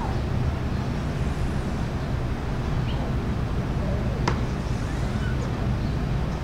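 Steady low machine hum, with a few faint short squeaks and a single sharp click a little past four seconds.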